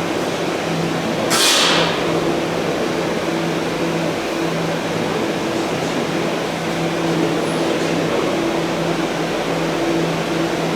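Steady hum and air noise of ventilation machinery, with a short, sharp hiss about a second and a half in.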